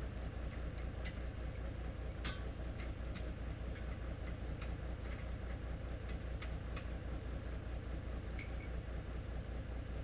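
Truck engine idling steadily with a fast, even low pulse, over which come scattered light clicks and ticks.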